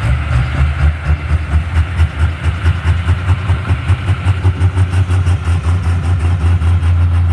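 Super stock diesel pulling truck's engine idling with a deep, lumpy rumble that pulses about four or five times a second.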